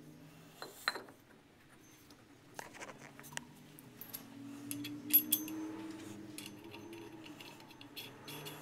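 Scattered metal clinks and taps as a stainless steel pump impeller is handled and seated in a lathe's four-jaw chuck, the sharpest pair about five seconds in. A faint steady hum sits underneath.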